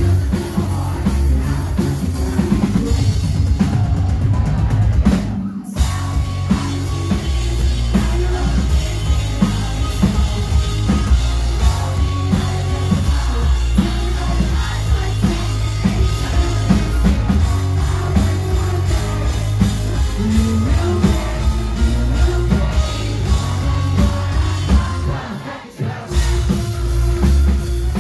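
Live rock band playing loud through the PA, with strong bass and drums and a singer on microphone. The band cuts out for a moment about five seconds in, and the music dips briefly again near the end.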